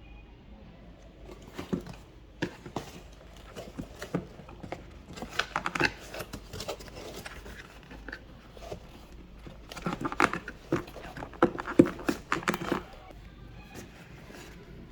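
Hands handling an unboxing's box and packaging: a run of sharp clicks, taps and rustling scrapes, busiest in two stretches, one around the middle and one shortly before the end.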